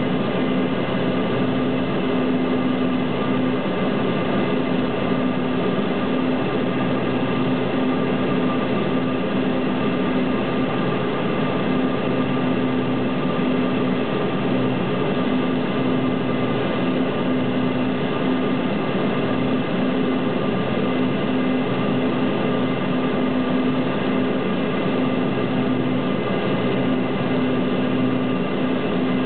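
Cabin noise of a Cessna Conquest twin turboprop in flight on final approach: a steady engine and propeller drone with a constant low hum, holding even without any change in power.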